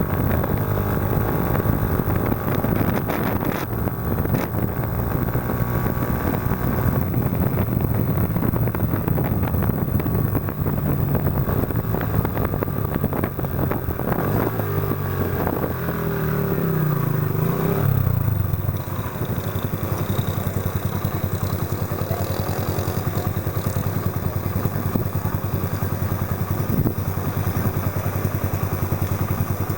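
Yamaha Factor 125's single-cylinder four-stroke engine running through a Roncar aluminium aftermarket exhaust. Its pitch steps up and down as the bike is ridden, falls away about 18 seconds in, and then holds a steady low note.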